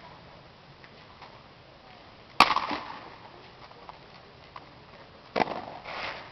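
Two sharp smacks of drill rifles being slapped and handled in unison during a rifle drill routine, about three seconds apart, the first the louder, each followed by a brief echo.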